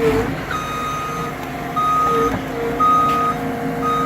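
Skid steer backing up with its reverse alarm beeping about once a second, four beeps, over the steady sound of its running engine.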